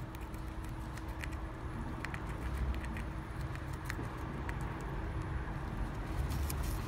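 Chipmunk gnawing an apple slice held against its cage bars: scattered small sharp clicks of its teeth biting into the apple, over a low steady rumble.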